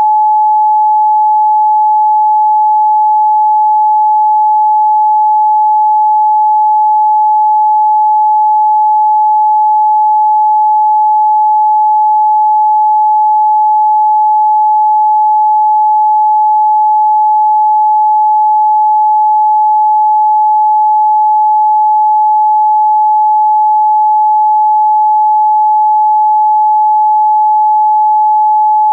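A pure 855 Hz sine-wave test tone, one steady pitch held unchanging and loud, with no harmonics.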